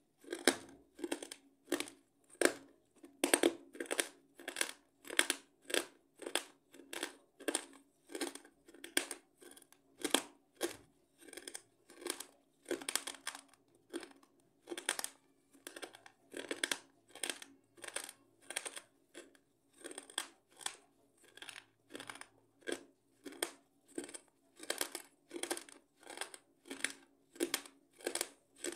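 Crisp rolled wafer being bitten and chewed in rhythmic crunches, about two a second, over a faint steady hum.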